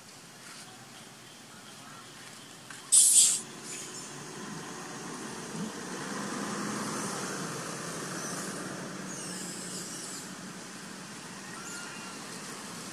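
Outdoor ambience among trees: a short, loud rustling burst about three seconds in, then a steady rushing noise that swells and slowly fades, with a few faint high chirps near the end.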